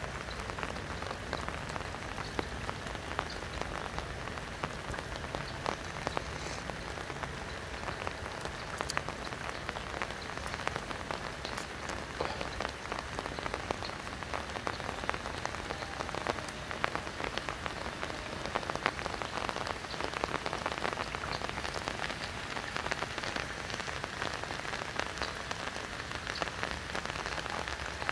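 Steady rain falling on a river's surface: an even hiss dotted with many small drop ticks.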